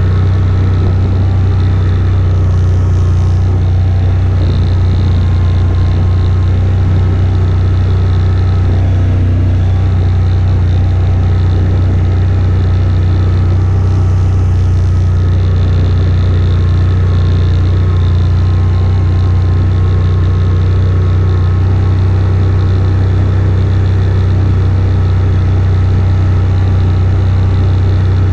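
AODES 1000 quad bike's V-twin engine running at a steady low speed while riding, a constant low drone. A short hiss rises over it twice, about two seconds in and about fourteen seconds in.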